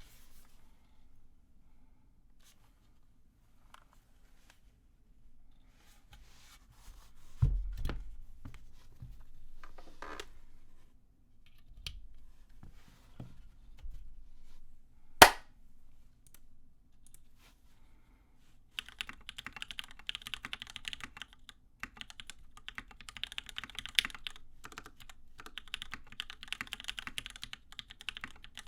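Custom mechanical keyboard with lubed Gateron Hippo switches, PBT keycaps and an aluminium top-mount plate: scattered single clicks and knocks, with one sharp loud click about halfway, then continuous fast typing from about two-thirds of the way in.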